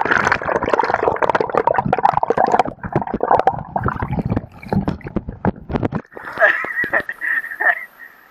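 Muffled churning and bubbling of river water around a submerged camera: a dense rush full of small knocks and clatter. About six seconds in it switches suddenly to the lighter, steady rush of the river's riffle heard from above the surface.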